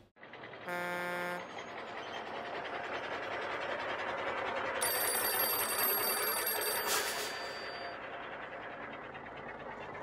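Sound effects: a short horn beep about a second in, then a vehicle driving past that swells and fades, with a telephone ringing from about five to seven seconds.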